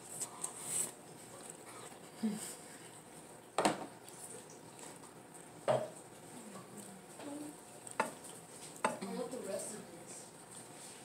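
Eating sounds from a person chewing soft food: scattered clicks and smacks, about four sharper ones, with a few brief faint murmurs.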